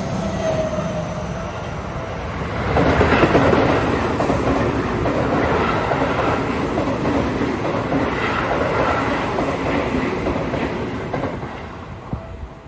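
A Seibu Shinjuku Line electric train running past a level crossing, its wheels clattering over the rail joints. It grows louder about three seconds in and dies away near the end.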